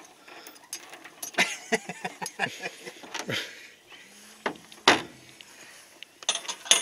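Metal clinking and clicking from a chain and heavy magnets being handled, with one sharp loud clack about five seconds in.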